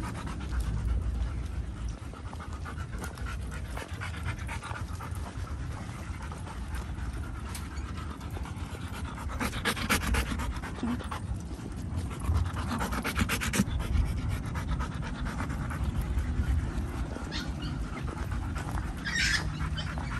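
Dog panting close to the microphone, loudest in two spells of quick, rhythmic breaths about halfway through.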